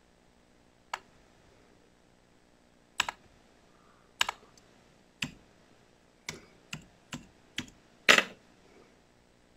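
Laptop keys pressed one at a time: about ten separate clicks, sparse at first and then closer together, the loudest near the end.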